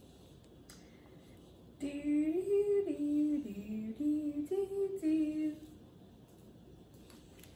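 A woman singing a short wordless tune of held notes, stepping up and down in pitch, for about four seconds, starting about two seconds in.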